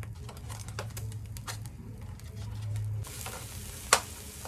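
Meat sizzling on a small tabletop grill plate, with scattered crackles. About three seconds in, the sizzle turns to a fuller hiss as raw beef slices lie on the plate, and a sharp tap about a second later is the loudest sound.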